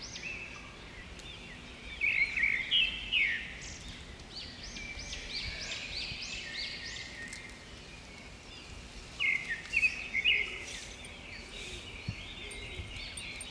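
Outdoor birdsong: birds chirping in runs of quick repeated high notes, coming and going in several bursts over a faint steady background hiss.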